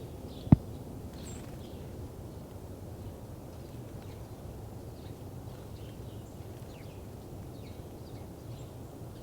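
Faint, scattered short bird chirps over a steady low rumble, with one sharp, loud click about half a second in.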